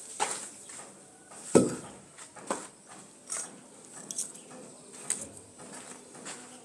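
Scattered, irregular knocks and clicks, the loudest a single heavier knock about one and a half seconds in.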